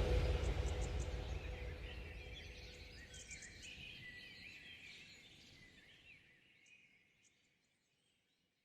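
Background music fading out to silence over about five seconds, with faint high chirping mixed into the fading sound.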